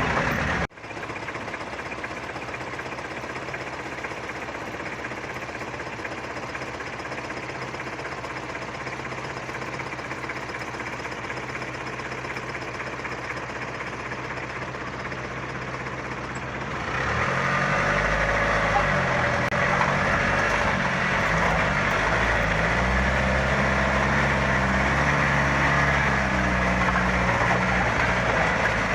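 Vehicle engine running while driving, with a steady hum. About seventeen seconds in it gets louder, and the engine note rises and falls repeatedly.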